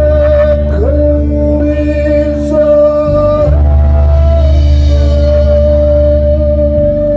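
Music: long held melody notes over a steady low drone.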